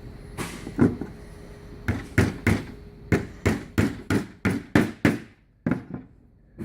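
Hammer driving small finish nails into a wooden beehive frame: a series of sharp blows, running at about three a second in the middle, with two lighter taps near the end.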